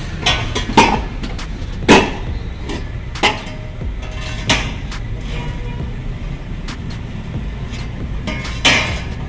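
Metal exhaust pipe clanking and knocking against the car's underbody as it is fitted, about six sharp hits with a short ring, the loudest in the first two seconds and one more near the end, over a steady low rumble.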